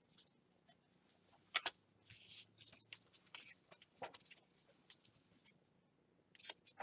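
Baseball trading cards being handled on a tabletop: scattered light rustles, swishes and clicks, with a sharper click about a second and a half in.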